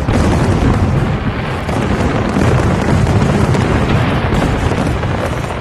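Fireworks going off in a dense, continuous barrage of bangs.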